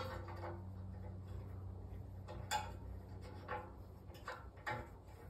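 A few faint, irregular clicks and scrapes of a helicoil thread insert being turned by hand into a tapped hole on its installation tool.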